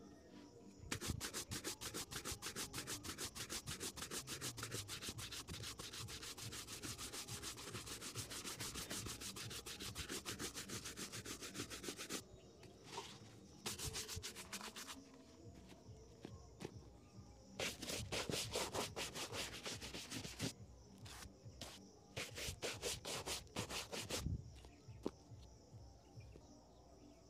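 Small bristle shoe brush scrubbing rapidly back and forth over a polished leather shoe to buff it. A long run of about ten seconds is followed by several shorter bursts of strokes, stopping a few seconds before the end.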